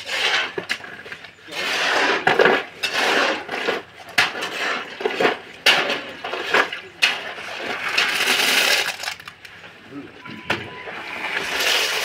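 Metal pans scraping and clanking against wet concrete mix as it is scooped up and loaded, in a run of irregular scrapes and knocks.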